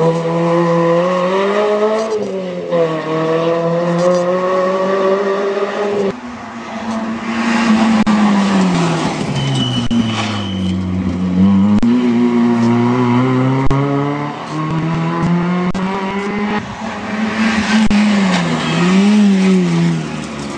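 Rally hatchbacks at competition pace taking a tight bend one after another. Their engines rev high, drop sharply on braking and gear changes, and climb again as each car accelerates away.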